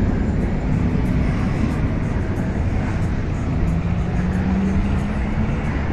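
Road traffic on a busy city avenue: a steady rumble of passing vehicles, with a low engine hum that comes up about halfway through.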